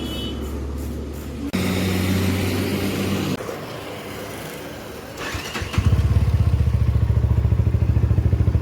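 UM sport motorcycle engine started on the electric starter: a brief crank about five seconds in, then it catches within about a second and idles with an even, rapid beat. It starts quickly after its rough-idle and long-cranking problem was fixed. A steady hum comes before the start.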